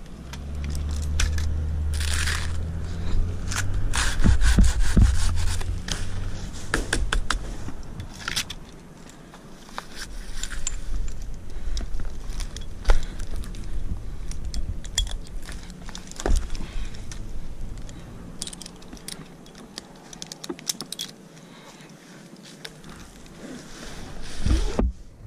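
Irregular scraping, crackling and light clinking as dry palm fronds are worked off by hand, with no chainsaw running.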